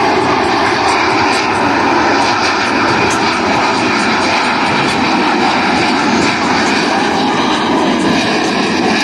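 Loud, steady jet engine noise from Boeing F/A-18 Super Hornet jets in flight, twin General Electric F414 turbofans per aircraft.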